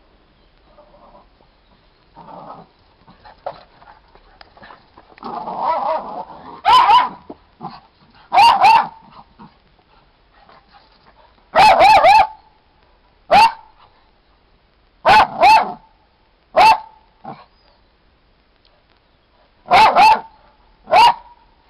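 Small dog play-barking: a series of short, sharp barks in bunches of one to three, after a rougher, noisier sound a few seconds in. The dog crouches in a play bow while it barks, an invitation to play.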